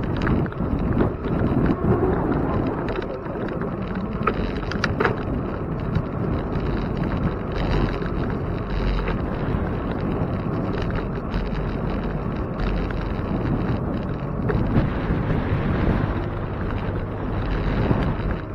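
Wind buffeting the microphone of a camera on a moving bicycle, over a steady rumble of tyres rolling on pavement.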